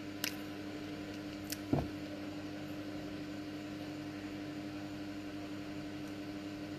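Steady hum of a running electric wall fan, with a few light clicks and a soft knock a little under two seconds in.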